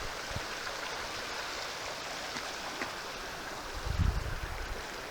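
River water rushing steadily over rocks. A brief low rumble about four seconds in.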